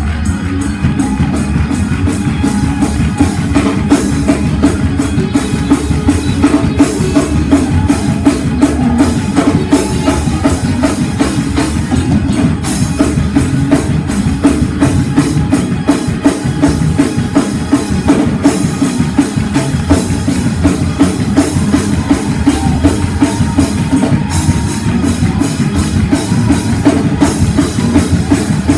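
Live church band playing fast praise-break music, driven by a loud drum kit with rapid, dense beats.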